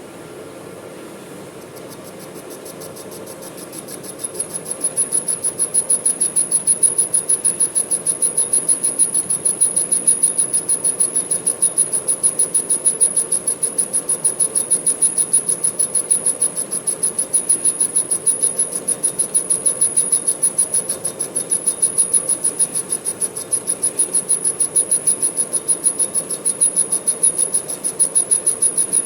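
Manual metal lathe running, with a loud, very high-pitched tone that swells in a couple of seconds in and pulses rapidly and evenly from then on.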